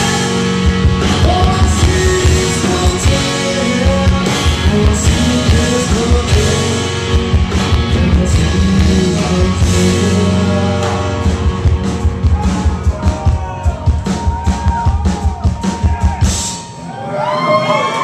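Live rock band playing loud with a shouted and sung lead vocal over drums, bass and guitar. About two-thirds of the way through the song closes on a run of rapid drum hits under a held note, then stops, and the crowd starts cheering and whooping near the end.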